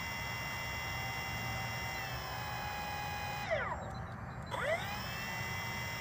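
Electric ducted fan of a Freewing 90mm F-16 model jet whining steadily at low throttle on the ground. A little over three seconds in, its pitch drops sharply as the throttle is pulled back, then climbs again about a second later as the fan spools back up.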